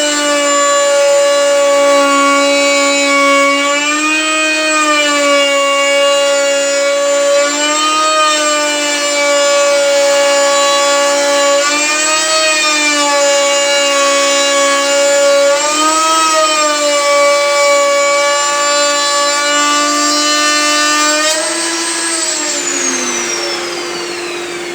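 Electric router milling Corian solid-surface material: a loud, steady high whine whose pitch lifts briefly about every four seconds. Near the end the motor winds down, its pitch falling steadily.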